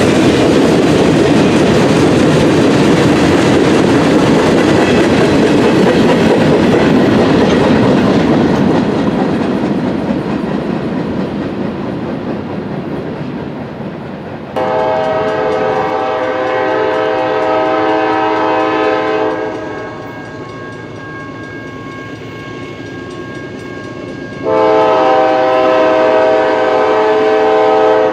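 Freight cars rolling past on the rails, their wheel noise fading away over the first dozen seconds. Then a locomotive's multi-chime air horn sounds one long blast about halfway through and another near the end as the engine approaches.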